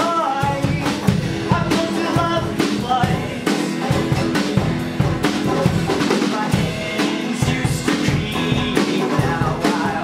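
Live folk punk band playing: a steady drum kit beat with guitar, and a voice singing at times.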